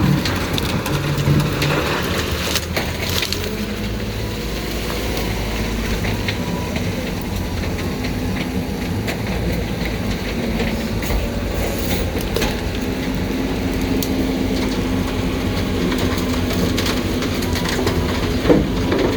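The Heil garbage truck's packer is crushing bulky waste, with wood cracking and splintering over the steady run of the truck's engine and hydraulics. A steady hydraulic tone comes in about two-thirds of the way through, and there is a sharp crack near the end.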